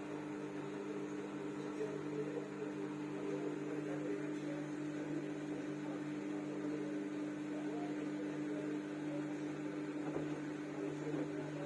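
Samsung washing machine running with a steady, even hum.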